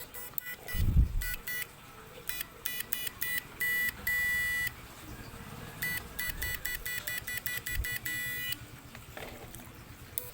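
Homemade PAC-type fish stunner emitting short high-pitched electronic beeps in irregular bursts as it is pulsed, with one longer beep about four seconds in and a quick run of beeps near the middle to end. A low thump comes about a second in.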